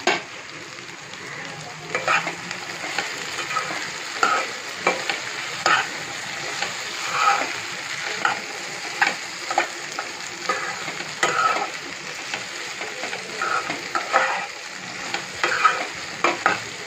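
Taro (colocasia) pieces frying in oil in a nonstick pan while a slotted spatula stirs and turns them: a steady sizzle with irregular scrapes and knocks of the spatula against the pan, thickest near the end.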